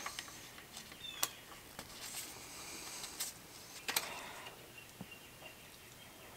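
Faint, scattered clicks and light scraping of hand work on an outboard's lower gearcase as the top vent plug is loosened with an Allen key, with a few sharper clicks about a second in, near three seconds and near four seconds.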